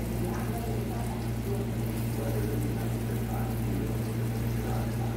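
Balls of yeasted batter frying in a small pan of hot oil: a steady bubbling sizzle as more batter is squeezed in, over a steady low hum.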